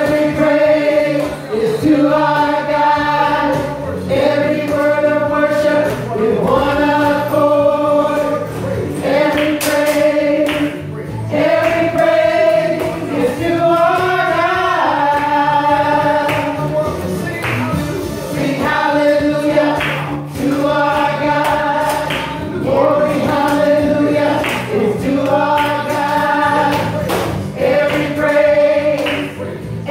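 A group of voices singing a gospel worship song together, in phrases of long held notes about two seconds each.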